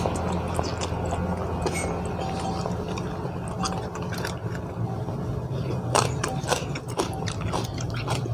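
A person biting and chewing a spicy papaya salad with raw blue swimming crab, with scattered sharp crunches and a brief cluster of louder crunches about six seconds in.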